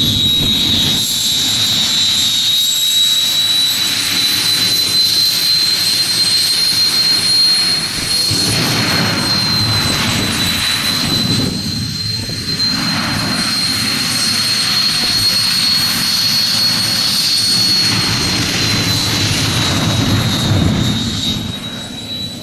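Racing quad engines running hard at high revs, with a steady high-pitched whine over the engine noise throughout.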